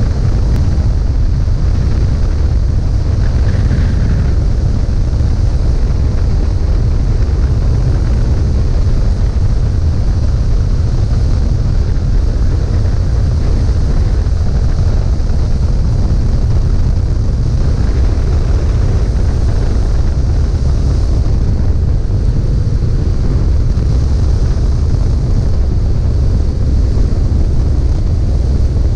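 Fixed-wing aircraft in flight on its approach to land: a steady, loud rumble of engine and airflow noise, heaviest in the low end, with no change through the descent and turn.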